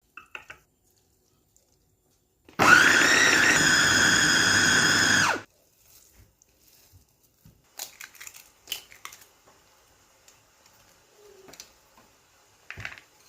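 Electric food chopper motor running for about three seconds with a steady whine and then cutting off, grinding chicken meat for nuggets. Light clicks and knocks of kitchen handling follow.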